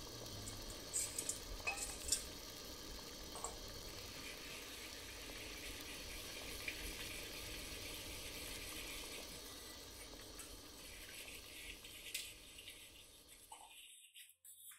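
Sweet-and-sour sauce with ginger and garlic simmering in a stainless steel pot: a faint, steady bubbling hiss. A metal spoon stirs in starch water to thicken it and clinks lightly against the pot a few times. The sound cuts out shortly before the end.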